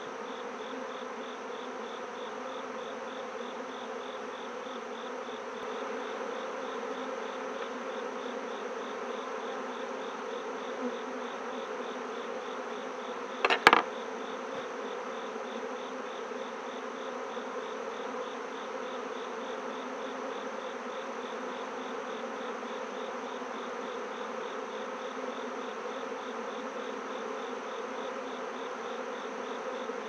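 Honeybee colony buzzing steadily around an open hive during an inspection. A single sharp knock comes about halfway through.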